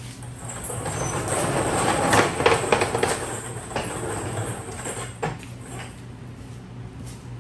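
Casters of wheel dollies rolling and rattling over a concrete floor under an ATV as it is pushed sideways. It builds over the first two seconds, is loudest with a few clicks around two to three seconds in, and dies away by about six seconds.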